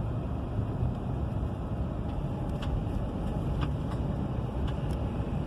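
2016 Chevy Suburban driving on the road, heard from inside the cabin: a steady low rumble of engine and road noise, with a few faint ticks.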